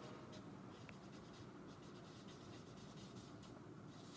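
Faint scratching of a felt-tip marker writing a word on flip chart paper, in a series of short, irregular strokes.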